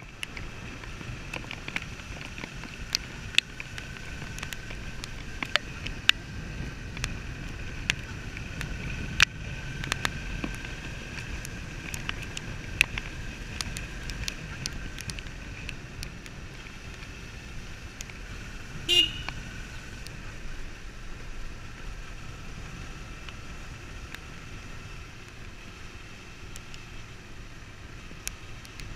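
Suzuki V-Strom 650's V-twin engine running steadily at low town speed, with scattered sharp clicks over the motor and road noise. A single short horn beep sounds about two-thirds of the way through.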